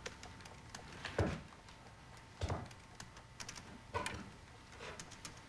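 Laptop keyboard typing in scattered soft taps, with three louder dull thumps spaced a little over a second apart.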